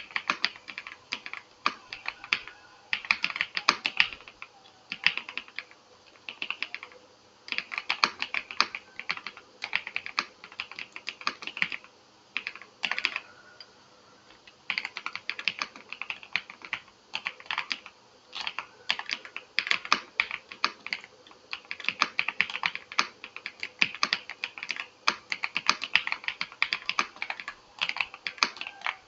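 Typing on a VGN V87 Pro mechanical keyboard with hot-swap sockets: rapid key clicks in bursts of a few seconds, with short pauses between them and a longer lull about halfway through.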